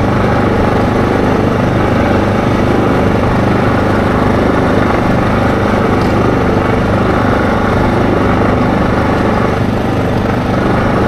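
ATV engine running at a steady cruise, mixed with wind and tyre noise, easing off slightly near the end as it slows into a turn.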